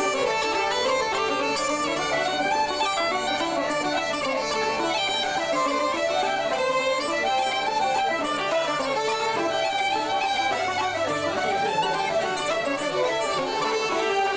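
Uilleann pipes playing a traditional Irish tune, their drones holding steady under the quick-moving chanter melody, with a fiddle playing along.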